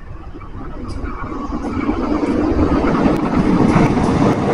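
CC201 diesel-electric locomotive hauling a passenger train along the line, its engine drone and rail noise growing steadily louder as it approaches, then jumping up sharply near the end as it comes close.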